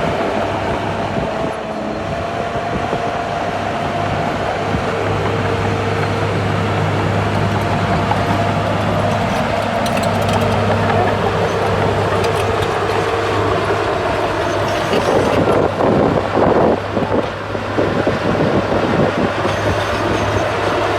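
Bulldozer working: its diesel engine runs steadily with a whine, and its steel tracks clank irregularly for a few seconds about three-quarters of the way through.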